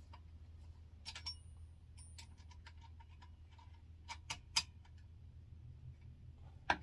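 Scattered light clicks and ticks of hard plastic and metal parts being handled and fitted on a chainsaw body, the sharpest cluster about four seconds in, over a steady low hum.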